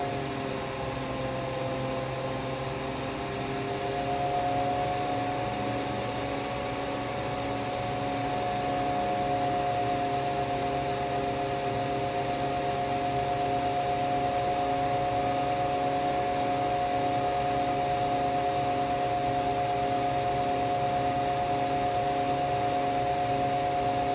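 Hotpoint Extra WMXTF942 washing machine's brushed motor and drum at high spin speed in service test mode, overspeeding. A steady motor whine over a regular pulsing hum, building slightly in the first few seconds and then holding.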